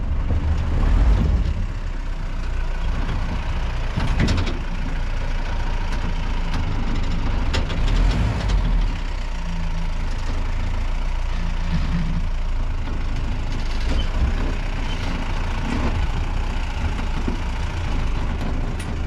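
Off-road jeep's engine running steadily as it drives over a rough dirt track, with a few sharp knocks and rattles from the bumpy ride.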